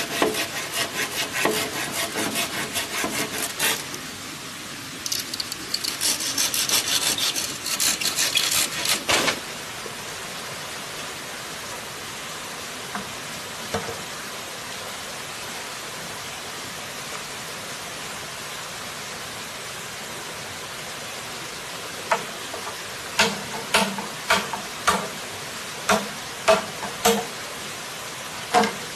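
A large knife scraping the skin of a green bamboo pole in quick rasping strokes for about nine seconds. After a stretch of steady background hiss, the blade strikes the bamboo about ten times in quick succession near the end.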